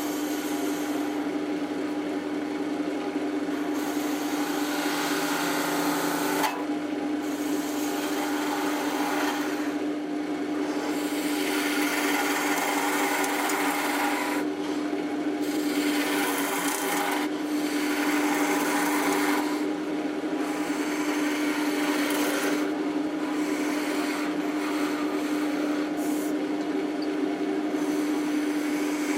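Wood lathe running with a steady hum while a tool cuts or sands the spinning wood. The rubbing, rasping contact noise swells and eases every couple of seconds.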